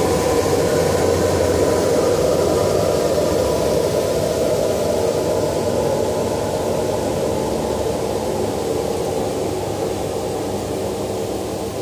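Bullmer Premiumcut CNC cutting table running: a steady rushing hum with faint steady tones, easing off slightly toward the end.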